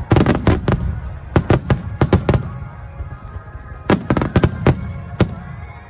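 Fireworks bursting in quick volleys of sharp bangs and crackles, with short lulls between the volleys.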